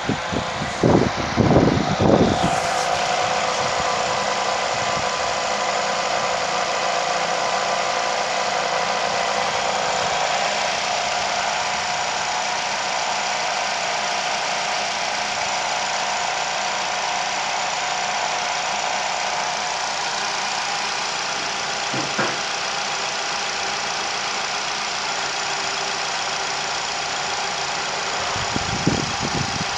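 Nissan QR25 2.5-litre four-cylinder petrol engine idling steadily. A few low thuds come in the first couple of seconds and again near the end.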